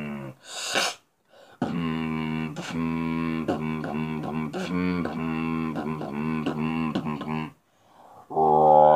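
Robotic beatboxing, like an electric current: a buzzing vocal tone made into cupped hands, chopped into a quick stuttering rhythm with little pitch wobbles. A short hissing breath comes near the start, and a louder buzz that bends upward starts near the end.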